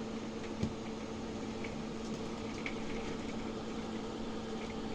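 Steady low electrical hum, like a running appliance or fan, with one soft click a little over half a second in.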